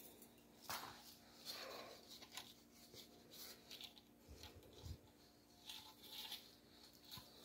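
Near silence with faint rustling and a few light taps and soft thumps as small decorative spheres are handled and set in place, over a faint steady hum.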